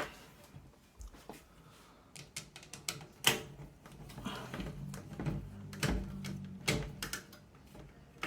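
Irregular small clicks, taps and knocks of screws, screwdriver and a case fan against a PC case as the fan is screwed in, with a few louder knocks.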